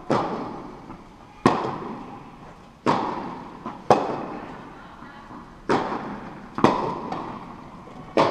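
Tennis rally: a tennis ball struck by rackets and bouncing on the court, about six sharp pops at uneven intervals of one to two seconds. Each pop trails off in the long echo of a large indoor hall.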